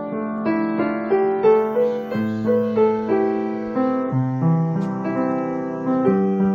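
Piano music: a melody of struck notes over held lower notes, with about two new notes a second.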